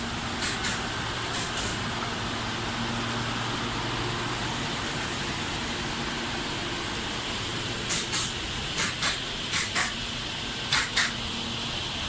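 Heat pump wood-drying kiln running, its compressor and fans giving a steady whirring noise over a low hum. Short, sharp hiss-like bursts, often in pairs, come twice in the first two seconds and in a cluster from about eight seconds in.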